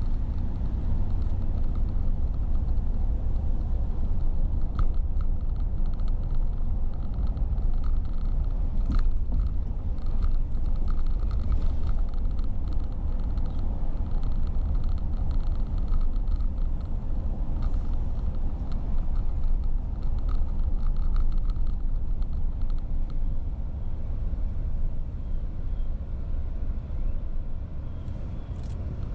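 A car driving on city streets: steady low road and engine rumble, with light intermittent rattling through the middle.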